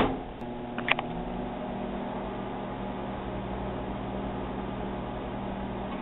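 Microwave oven switched on and running: a short beep about a second in, then a steady hum from the oven's transformer, magnetron and fan.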